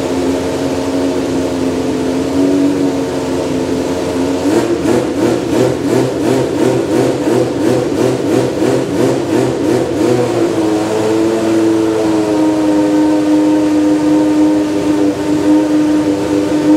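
Judd GV10 3.5-litre naturally aspirated V10 of a 1992 Lola T92/10 Group C car warming up. It runs at a steady fast idle, then about four seconds in it is blipped quickly on the throttle, about three revs a second, for some five seconds. After that it settles back to a steady idle that steps up slightly in pitch about twelve seconds in.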